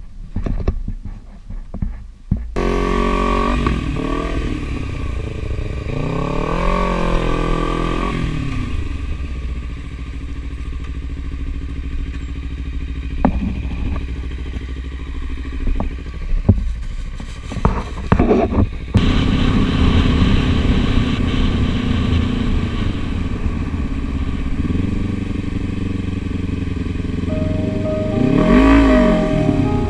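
Sport motorcycle engine running: after a few clicks and knocks at the start, it comes in about two and a half seconds in, revs up and back down, then runs steadily while riding. Near the end it revs up and falls back once more.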